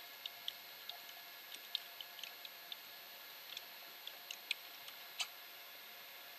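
Computer keyboard typing: about twenty quick, irregular key clicks, the last and one of the loudest about five seconds in, over a faint steady hiss.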